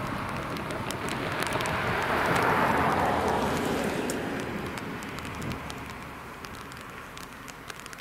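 Two cars driving past on asphalt, with tyre and engine noise that swells to a peak about two to three seconds in and then fades away.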